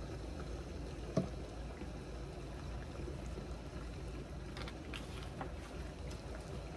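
Pot of rice and water heating toward a boil on an electric stovetop, a steady bubbling hiss, with a faint knock about a second in.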